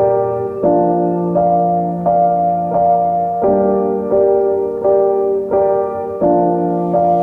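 Background piano music, with a new chord or note struck about every two-thirds of a second.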